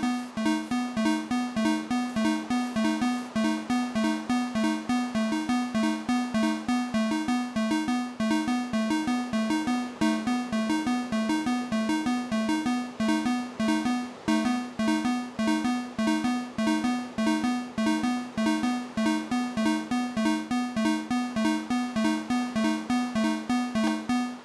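Electronic fire alarm sounder giving a two-tone alternating alarm signal, switching back and forth between two low, buzzy pitches several times a second, then cutting off abruptly at the end.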